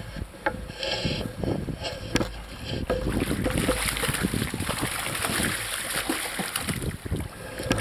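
Speared jack crevalle thrashing at the water's surface on a bowfishing line, splashing and churning the water in irregular bursts that grow busier partway through.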